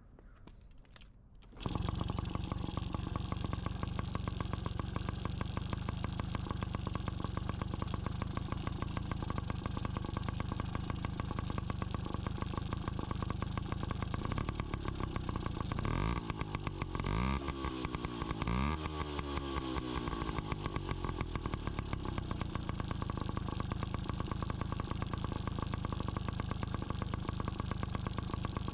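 Yamaha PW50's 49cc single-cylinder two-stroke engine starting up about two seconds in, then running at a steady idle, with a few quick throttle blips around the middle.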